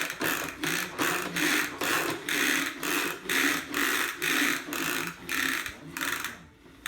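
A vacuum being pushed back and forth, its mechanism rattling and clicking in even strokes about two a second, with a short break near the end.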